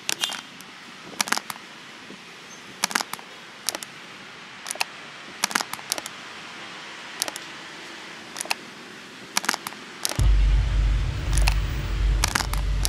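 Plastic bottle hopping along stone paving: sharp light clicks, often in close pairs, irregularly about once a second, over a steady hiss. A deep low rumble sets in about ten seconds in.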